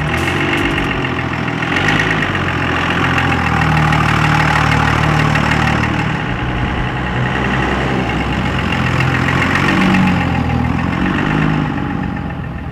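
A lifted 2001 Dodge Ram 2500's 5.9-litre 24-valve Cummins inline-six diesel running as the truck drives by. It is loudest about ten seconds in, when the truck passes close.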